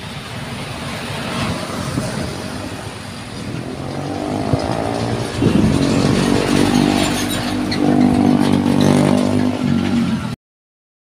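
Heavy cargo truck passing close by, its diesel engine droning steadily and growing louder from about four seconds in. The sound cuts off abruptly shortly before the end.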